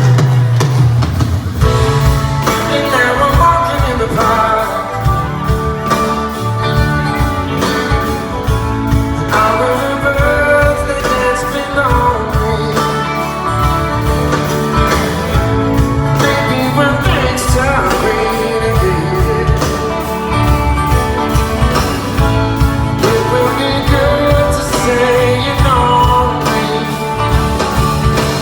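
Live rock band playing with electric guitar, bass and drums, with a voice singing at times.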